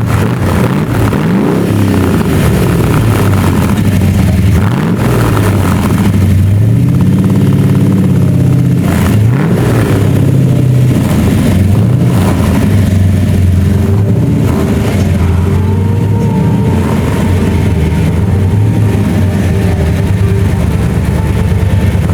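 A car engine running loudly and being revved, its pitch rising and falling several times.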